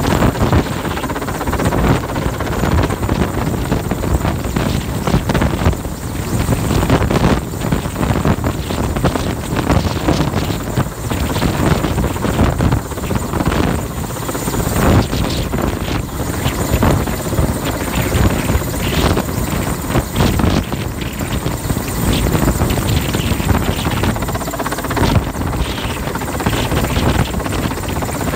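A Mil Mi-8/Mi-17-family transport helicopter hovering close overhead with a load slung beneath it: loud, continuous rotor and engine noise that pulses unevenly.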